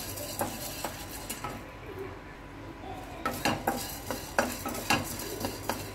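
A wooden spatula stirring whole coriander seeds, fennel and cinnamon dry-roasting without oil in a non-stick kadai. The seeds rustle over the pan, with irregular light knocks of the spatula against the pan that come more often in the second half.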